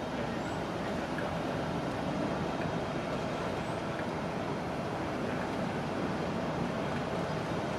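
Heritage diesel locomotive running steadily, a continuous even engine drone with no rise or fall.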